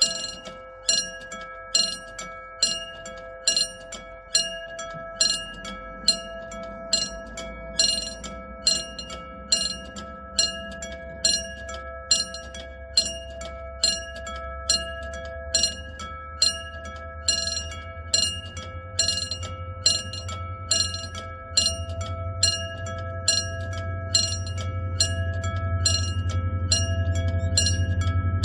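Level-crossing warning bell ringing in steady repeated strikes, about one a second. Over the last ten seconds the low rumble of an approaching diesel-hauled passenger train grows steadily louder beneath the bell.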